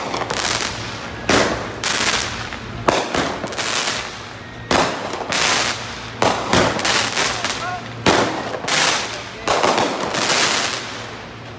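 Fireworks going off overhead in a quick series of loud bangs, about one a second, each trailing off over about a second.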